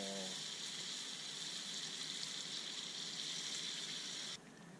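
Hot pot of plov sizzling steadily as water is poured over the rice. The sizzle cuts off abruptly near the end.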